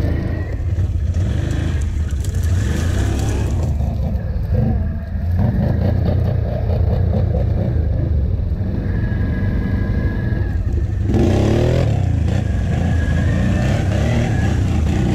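ATV engines running and revving, the pitch rising and falling with the throttle. The sound changes abruptly about eleven seconds in.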